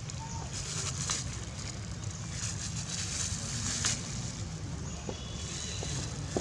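Thin plastic bag crinkling as a young macaque handles and chews it, with sharp crackles every second or so over a steady low rumble.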